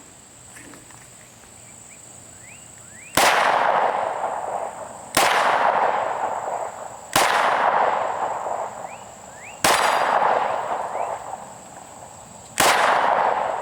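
Five 9mm pistol shots from a Smith & Wesson Competitor Series pistol, fired one at a time about two to three seconds apart. Each report trails off for about two seconds.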